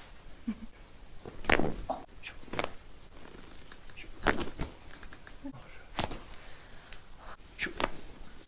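Joints popping during a chiropractic adjustment: a series of sharp cracks spread over several seconds, the loudest about a second and a half in and about four seconds in.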